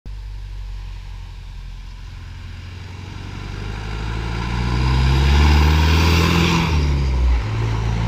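Cummins 4BT four-cylinder turbo diesel in a Ford Ranger pickup accelerating toward and past, growing louder to a peak about five and a half seconds in. Its engine note then drops in pitch near the end.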